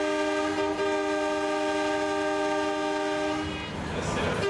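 Horn of a 400-class Redhen railcar, heard from its driving cab, sounding one long steady blast that stops about three and a half seconds in, then a short blast near the end. It is a warning for a road level crossing just ahead.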